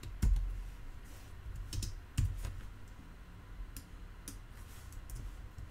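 Computer keyboard typing: scattered, irregular keystrokes, a few at a time, with louder ones just after the start and about two seconds in.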